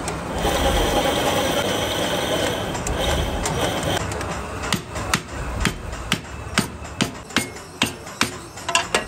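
A hammer striking a wooden block held against a freshly wound transformer coil, sharp taps about two to three a second from about halfway through, seating the insulated wire turns tight on the former. Before the taps start, a steady noise with a high tone runs for a few seconds.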